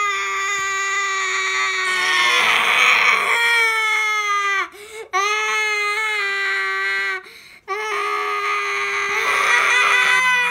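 A baby's cry: three long, drawn-out wails on a high, fairly steady pitch, the first growing rough and louder in its middle, with short breaks about four and a half and seven and a half seconds in.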